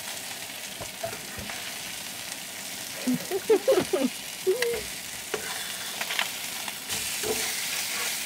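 Lionfish fillets sizzling as they fry in butter in a pan, with a fork tapping and scraping against the pan as they are turned, loudest between about three and five seconds in.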